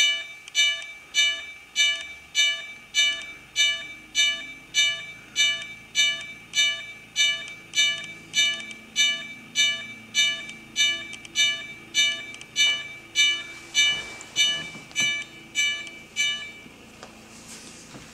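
Railroad grade-crossing bell sound effect played through a small speaker driven by an Arduino MP3 player module: even bell strokes at about two a second, each ringing briefly and fading, stopping shortly before the end.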